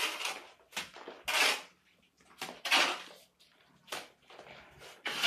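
Steel trowel scraping cement mortar off a hand board and slapping and spreading it onto a concrete hollow-block wall, a series of short scrapes about one a second.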